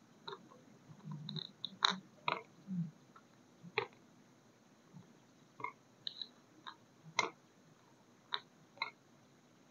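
Scattered small clicks and taps, about a dozen at irregular intervals, with a few soft rustles in the first few seconds, from hands handling wax-sealing tools and hardened sealing wax.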